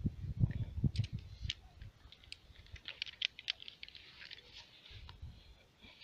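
Small, irregular clicks and taps of metal climbing gear being handled: carabiners and a rope-clamp pulley on the rope. A few soft handling bumps come in the first second.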